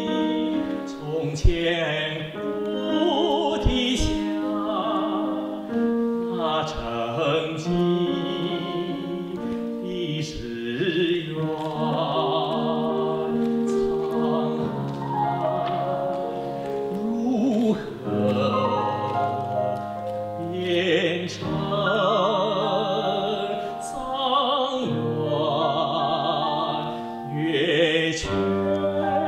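A male classical singer sings a Chinese art song in operatic style with wide vibrato, accompanied by piano, violin and cello.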